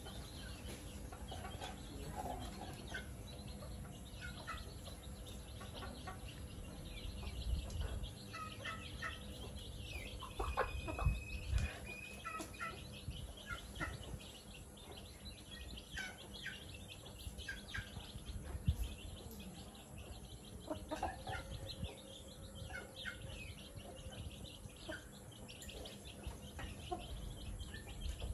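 Chickens foraging on bare ground, giving scattered short clucks and chirps. One longer high note comes about eleven seconds in, and a few low thumps are heard around it and again later.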